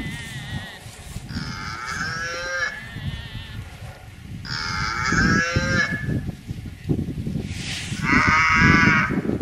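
Cows mooing: three long calls, each about a second and a half, a few seconds apart. A low rustling noise runs underneath.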